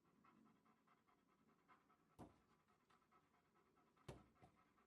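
Near silence, broken by a few faint short clicks about two seconds in and again near the end.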